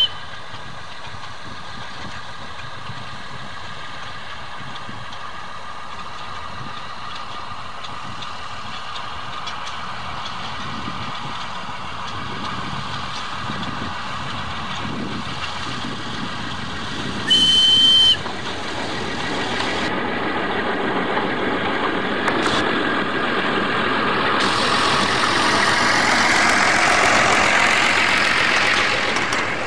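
Small narrow-gauge diesel locomotive running steadily as it approaches hauling a train of wagons, growing louder as it comes near. Its horn sounds once, a single steady blast of about a second just past the middle. Near the end the wagons pass close, with wheels clicking over the rail joints.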